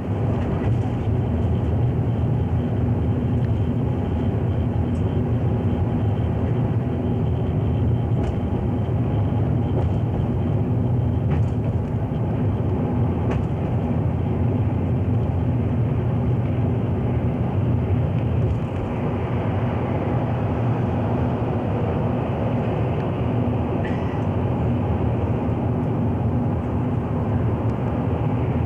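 Steady rumble of a vehicle travelling at speed, heard from inside, with a low droning hum that eases slightly about two-thirds of the way through.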